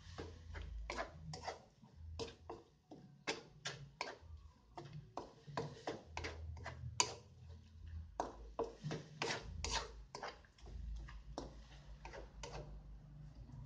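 Wooden spatula knocking and scraping against a nonstick wok while stirring grated coconut filling, in irregular clicks about two or three a second, over a low rumble.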